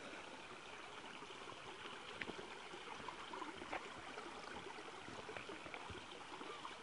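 Steady rushing hiss of running creek water, with scattered faint clicks throughout.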